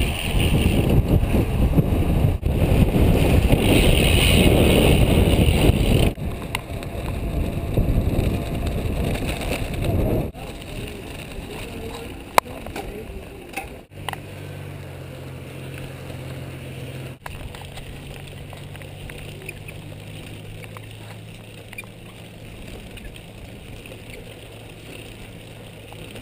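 Wind buffeting a bicycle rider's camera microphone while riding, loud for the first several seconds. After that it gives way to quieter riding noise, with a steady low hum from about halfway on.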